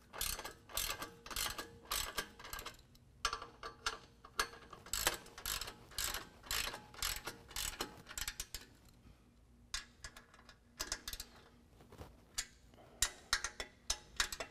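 Hand ratchet with a 13 mm socket clicking in rapid strokes as it tightens the factory bolts at the exhaust flange, in repeated bursts with short pauses between them and a longer pause about ten seconds in.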